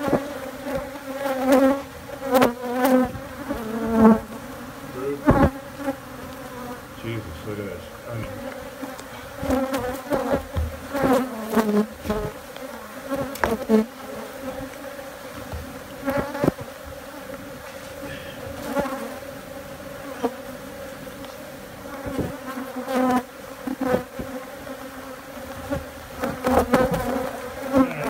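Africanized honey bees buzzing in a steady mass hum as their comb is being cut out, the colony stirred up, with louder swells as single bees fly close past. Occasional short knocks from the comb being handled.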